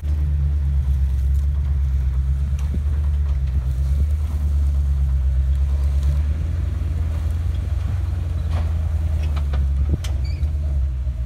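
Old Land Rover's engine running steadily at low revs, a low rumble, as the truck creeps over a rock ledge on the trail.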